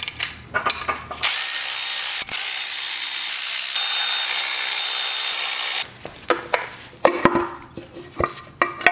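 Cordless electric ratchet spinning out the front timing cover bolts on an LS V8 block, running steadily for about four and a half seconds with a brief break early on. After it stops come several light clicks and knocks of metal parts being handled.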